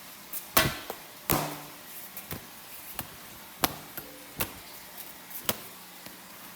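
Irregular sharp knocks and clicks, about eight in all. The loudest come about half a second and a second and a half in, the second with a short ringing tail.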